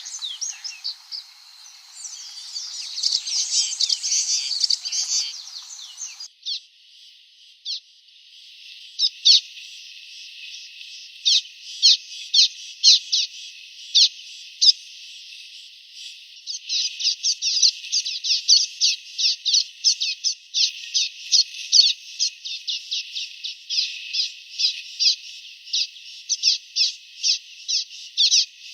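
Common waxbill (bico-de-lacre) calling: short, high-pitched chips and twitters. After an abrupt cut about six seconds in, the chips come in quick, irregular runs that grow busier through the second half.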